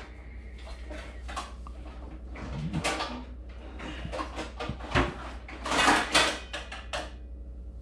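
Rummaging through a kitchen cupboard: a string of knocks and clatters as things inside are moved about, busiest near the end, over a steady low hum.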